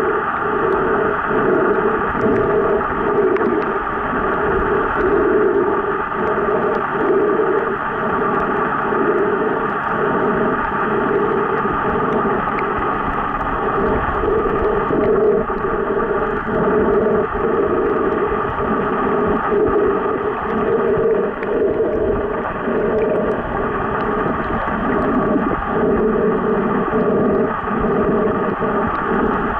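Steady, muffled underwater rushing noise picked up by a camera held under water, with small irregular swells and dips.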